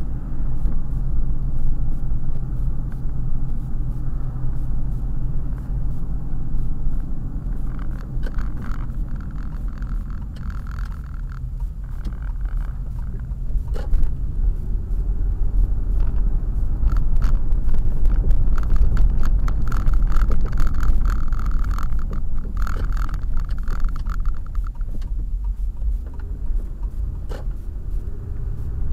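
Car engine and tyre noise heard from inside the cabin while driving: a steady low rumble, with stretches of road hiss and a few brief knocks, the loudest about halfway through.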